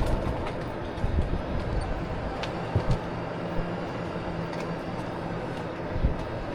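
A vehicle rolling slowly along a campground road: a steady rumble of running and road noise, with a few short low thumps about three seconds in and again near the end.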